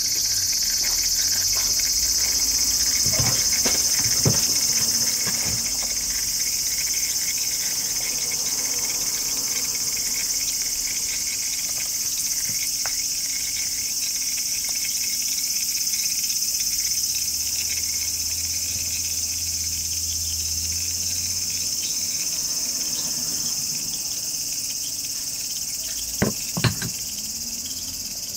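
Insect chorus, a steady high-pitched drone, with two sharp clicks near the end.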